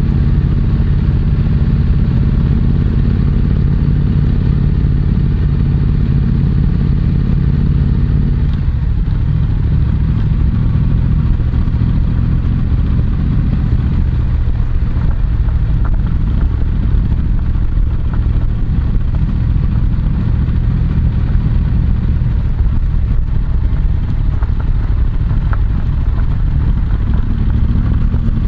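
Yamaha MT-07's parallel-twin engine running through an SP Tadao Power Box full exhaust while riding, a steady exhaust note. About a third of the way in the note drops to a lower pitch and holds there.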